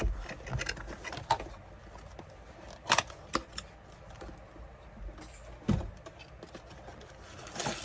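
Packaging being rummaged through during an unboxing: scattered rustling with light clicks and knocks of small items being handled, the sharpest click about three seconds in and another knock nearer the end.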